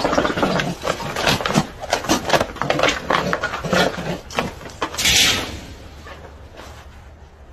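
Young animals scuffling against a person's clothing: a quick run of short rustles and knocks, with a louder hissing rush about five seconds in, then fading away.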